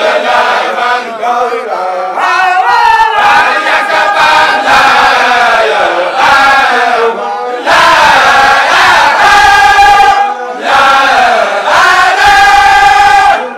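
A group of voices chanting together in long, held melodic phrases, loud, with short pauses between phrases.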